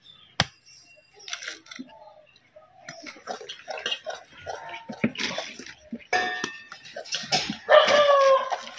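A machete chops once into a green coconut husk just after the start, then a ladle clinks and scrapes in a steel cooking pot amid household clatter. The loudest moment, near the end, is a short pitched sound that falls slightly.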